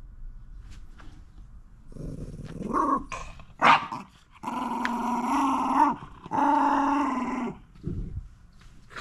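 Shiba Inu vocalizing in long, drawn-out grumbling calls: a rising call about two seconds in, a short sharp yelp near the middle, then two long held calls of over a second each.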